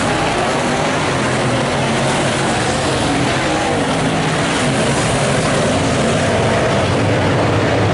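A field of late model sedan race cars with V8 engines running hard at racing speed. Several engines sound at once in a loud, steady mass, their pitches shifting slightly as the cars pass.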